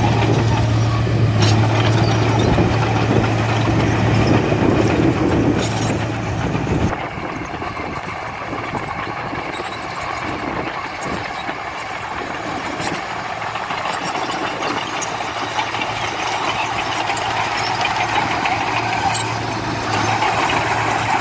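Diesel engine of heavy earthmoving machinery running loud and steady, dropping suddenly to a quieter, rougher run about seven seconds in, then building back up toward the end.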